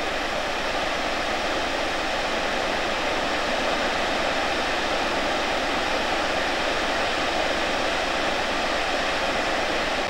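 A large waterfall rushing: a loud, steady noise of falling water.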